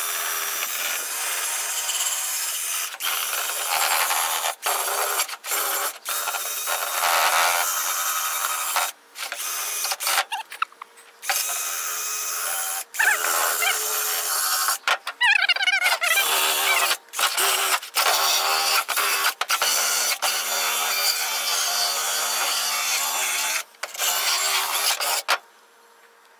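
Cordless drill spinning a wire wheel brush against a rusty steel differential cover, scouring off rust and gunk. It runs in many short spells that stop and start, with a steady motor whine under the scraping.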